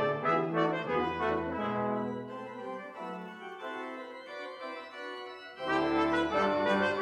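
Low brass ensemble of tubas and euphoniums playing slow, sustained chords. The chords soften in the middle, then a louder full chord comes in near the end.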